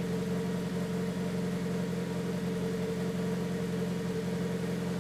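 Turbocharged 2000 Honda Civic EX's four-cylinder engine idling steadily.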